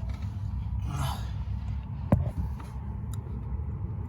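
Handling noise: one sharp knock a little after two seconds in, over a steady low rumble.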